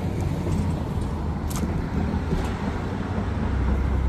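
Road traffic: a motor vehicle's engine and tyre noise going by, with a low rumble that gets stronger near the end.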